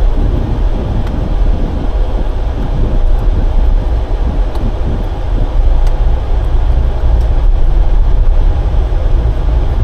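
Hyundai i20 Active car driving, heard from inside the cabin: a steady, loud low rumble of road and engine noise.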